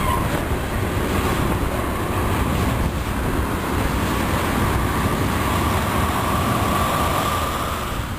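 Freight train of tank cars rolling past close by: a steady rumble of steel wheels on rail, with a faint steady whine running through it.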